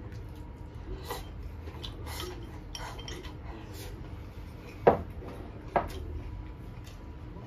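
Chopsticks clicking and scraping against a small ceramic bowl while eating from it, then two louder knocks about five and six seconds in as the bowl is put down on the wooden table.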